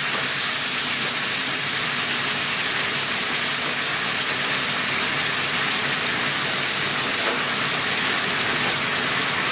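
A hot pan of chicken in demi-glace sauce sizzling and bubbling with a steady hiss.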